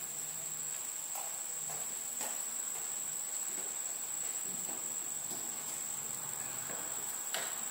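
Steady high-pitched chorus of crickets, with a few faint knocks and a sharper click near the end.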